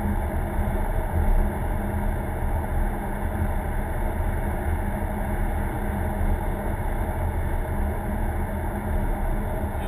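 Steady drone of a car driving, heard from inside the cabin: engine hum and tyre and road noise with no sudden events.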